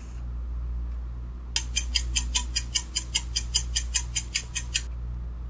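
Countdown timer sound effect: rapid clock-like ticking, about six ticks a second, starting about one and a half seconds in and stopping about five seconds in, over a steady low hum.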